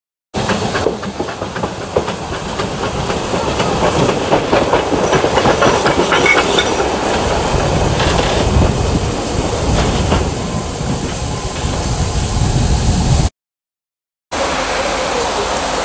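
Narrow-gauge steam tank locomotive 99 6001 running light past at low speed: steam hissing and chuffing, with wheels clicking over the rail joints. It cuts out for about a second about 13 s in, and a steady hiss of steam from a standing train follows.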